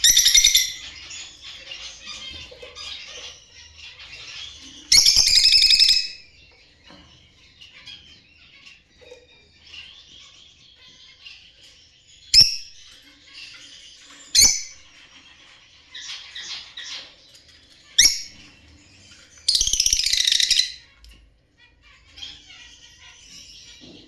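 Pet lovebirds chattering, with three loud shrill screeches of about a second each and several short, sharp chirps in between.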